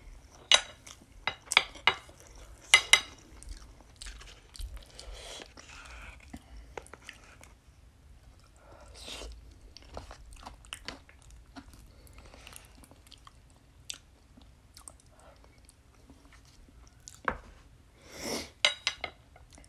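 A person eating close to the microphone: several loud, sharp crunchy bites in the first three seconds, then quieter chewing, with a few sharp clicks near the end, like chopsticks against a cup or plate.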